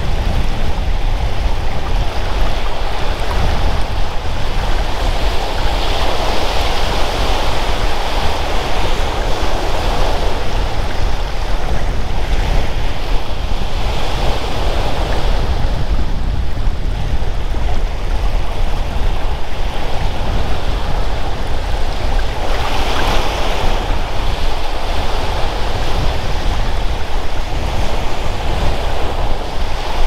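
Waves washing onto a beach in a continuous surf noise that swells and fades every few seconds, with wind buffeting the microphone in a low rumble.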